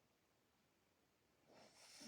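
A sleeping person snoring: a quiet pause between snores, then the next snore starting to build about one and a half seconds in.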